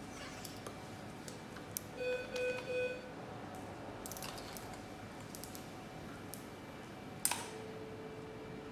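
Electrosurgical generator activation tones during laparoscopic dissection. A short buzzy beeping tone sounds about two seconds in, and near the end a click is followed by a steady, slightly lower tone. Faint operating-room hiss and scattered instrument clicks run underneath.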